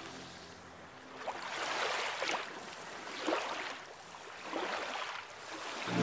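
Seawater lapping and sloshing in a narrow gap between rocks, swelling and ebbing about three times.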